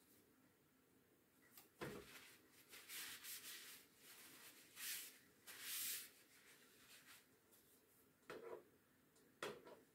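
Faint handling sounds at an electric crêpe maker: several short rustles of a paper towel in the hands, then two light knocks near the end as the spatula comes to the crêpe.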